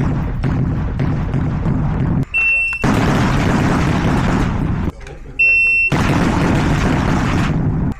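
Shot timer beeping twice, a single high electronic tone of about half a second each time, about three seconds apart. Between the beeps there is a loud, steady rushing noise, heavy in the low end, that drops out suddenly just before each beep.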